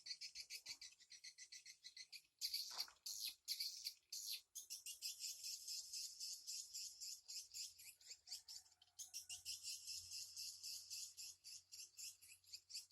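Swiftlet calls: dense, rapid, high twittering chirps that run on with only short breaks, about two and four seconds in.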